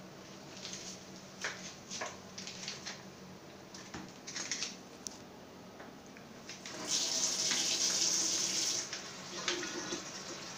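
Kitchen sink tap running for about two seconds, a little past the middle. Before it, light clicks and rustles as a sauce pouch is squeezed out over a steel pot.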